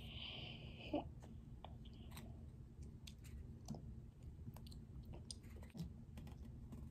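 Faint clicks and scrapes of a small plastic spoon in a Kinder Joy's plastic egg cup, with quiet eating sounds as the chocolate hazelnut cream is spooned into the mouth. There is one sharper click about a second in.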